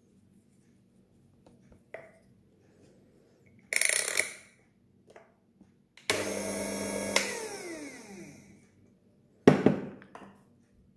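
Electric coffee grinder motor switched on briefly twice: first a short burst, then a run of about a second that is cut off and spins down with a falling whine, clearing the last grounds from the burrs. A sharp knock comes near the end as the metal dosing cup is set down.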